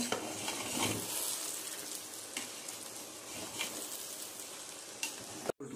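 A steel spoon stirring and scraping through chicken biryani rice in an aluminium pot, over a steady sizzle from the pot on the heat. The sound cuts off suddenly near the end.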